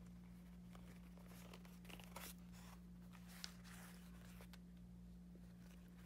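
Faint rasping swishes of waxed thread being drawn through pre-punched holes in leather during hand stitching, several times, with a small tick about three and a half seconds in, over a low steady hum.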